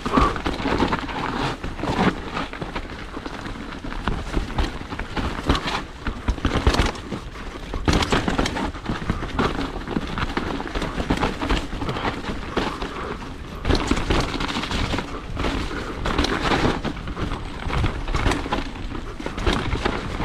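Full-suspension mountain bike riding down a steep, sloppy trail: the tyres run through mud while the bike rattles and knocks over roots and rocks, with repeated sharp impacts over a constant rumbling noise.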